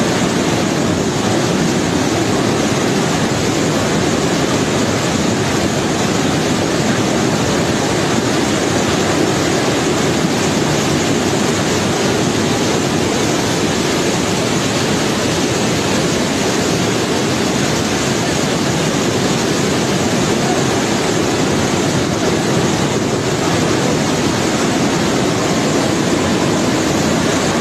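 Flooded river rushing past in a muddy torrent: a loud, steady rush of water that never lets up.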